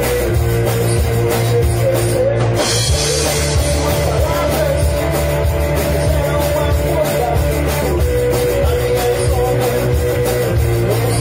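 Live rock trio playing an instrumental passage: electric guitar, bass guitar and drum kit together, without vocals.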